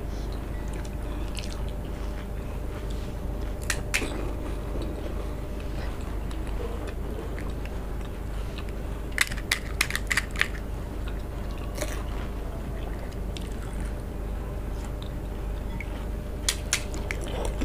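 Crisp, hollow fuchka (panipuri) shells being cracked open with the fingers and crunched and chewed while eating. The crackles come in a few short clusters, about four seconds in, around ten seconds and near the end, over a steady low hum.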